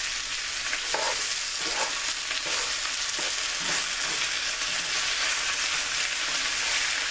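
Sliced potatoes and onions sizzling steadily in hot oil in a frying pan, with a utensil scraping against the pan at irregular intervals as they are stirred.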